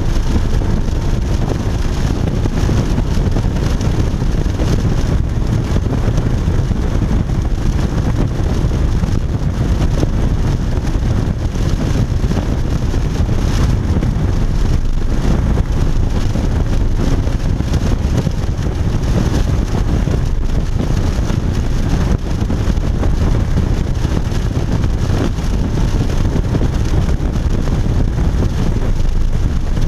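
Porsche Cayman GTS's 3.4-litre flat-six running at speed on a race track, heard from inside the cabin with heavy road and wind noise. The sound is steady throughout.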